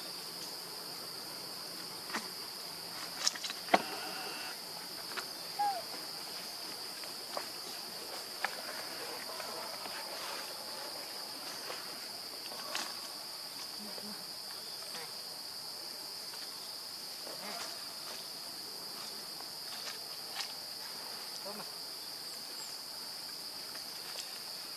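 Steady, high-pitched drone of insects, one unbroken tone, with a few sharp clicks and knocks scattered through it, the loudest about three to four seconds in.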